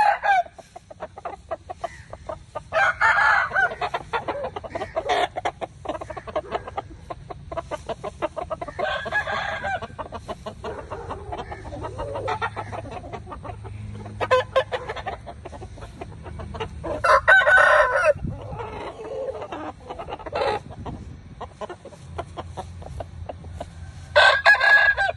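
Aseel roosters crowing one after another, a crow every few seconds, with clucking between the crows.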